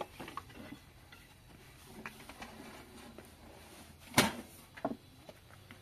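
A sharp knock about four seconds in and a lighter one just after, over a quiet background with a few faint clicks.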